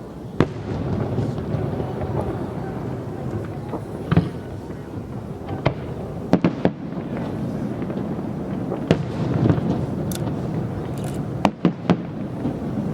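Fireworks display: about nine sharp bangs at irregular intervals, over a continuous low-pitched background noise.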